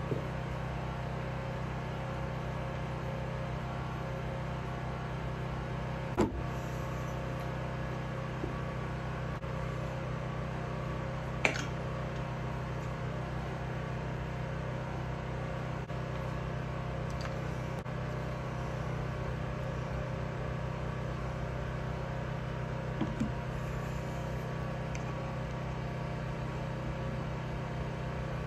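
Steady low hum in a small room, with a sharp click about six seconds in, another about eleven seconds in, and a quick double tap near the end as the fork's metal parts are handled.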